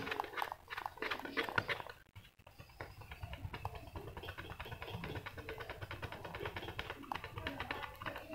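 Fingertip rubbing polishing compound back and forth over the glossy clear-coated plastic body shell of a model car, a quick run of small rubbing squeaks and ticks with a short pause about two seconds in.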